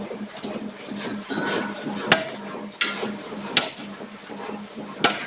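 C41 560 kg pneumatic forging hammer striking hot steel bearing-ring blanks: sharp metallic blows, three loud ones about a second and a half apart in the second half, with lighter knocks between. A steady low hum runs underneath.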